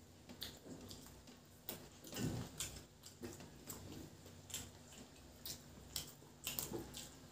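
Faint close-up eating sounds of rice and curry eaten by hand: a scatter of short, wet clicks from chewing and lip smacks, with one louder mouth sound about two seconds in.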